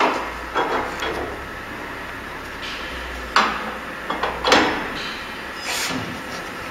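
Double-head cutting saw with its movable saw head worked by hand along the rails: a string of metal clunks and knocks with sliding in between, about five in all, loudest about four and a half seconds in. A low hum runs under the first four and a half seconds, then stops.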